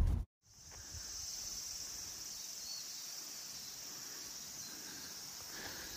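Car cabin noise cuts off a moment in, giving way to a steady, high-pitched chorus of insects.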